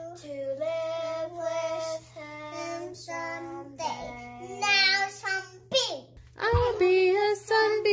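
A young girl singing a song unaccompanied, holding long notes.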